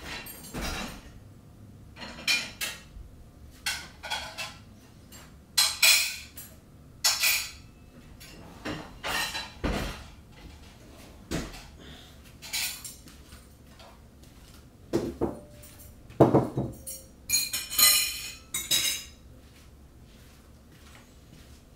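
Irregular clinks and clatters of hard objects. Short sharp knocks with a brief ring come singly or in pairs every second or two, with a denser run of them near the end.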